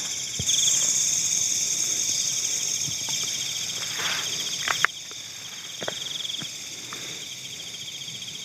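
Insects chirring: a steady, pulsing trill, with a louder, higher buzz that comes in about half a second in and cuts off suddenly near five seconds. A few light clicks and taps are scattered through it.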